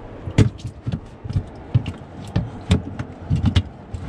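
A freshly caught walleye flopping in a boat's near-empty plastic livewell: irregular dull thumps and knocks, sometimes two close together.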